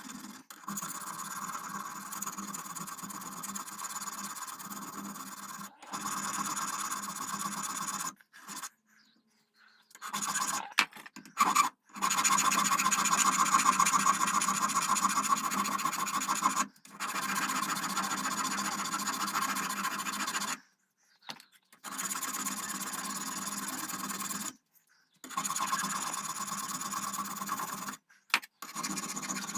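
Brass being worked with an abrasive tool: a steady scraping sound in several stretches of a few seconds each, broken by short silences.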